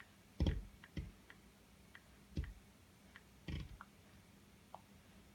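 Fingertip taps on an iPhone 5 touchscreen while typing a text message: four soft taps, with faint small clicks between them.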